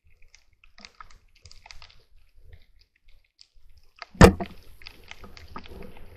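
Speargun fired underwater about four seconds in: one sharp, loud crack, followed by low rumbling water noise. Faint scattered clicks before the shot.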